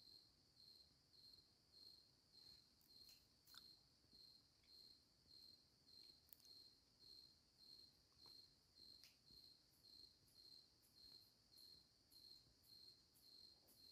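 Faint cricket chirping: a high chirp repeating evenly about three times a second, with a few soft clicks.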